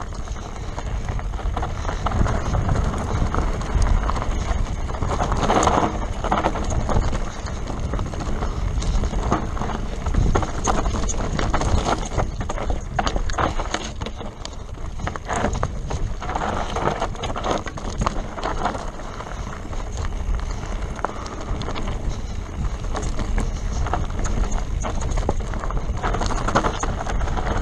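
Mountain bike riding fast down a dry, rocky singletrack: tyres crunching over loose stones and the bike rattling, with frequent knocks as it hits rocks and roots. Wind buffets the microphone.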